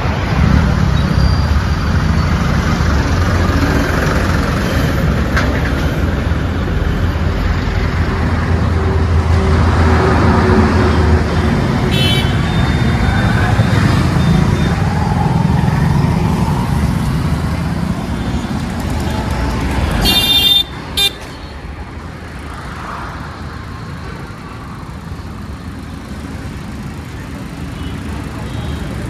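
Road traffic noise with a steady low rumble from passing motor vehicles, and brief vehicle-horn toots about twelve seconds in and again at about twenty seconds. After the second toot the traffic noise drops suddenly and stays quieter.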